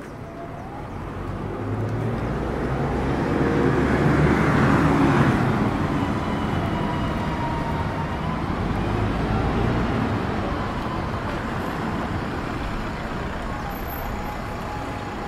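A motor vehicle passing close on a street: engine and road noise grow louder over the first few seconds, peak about five seconds in, then slowly fade under continuing traffic.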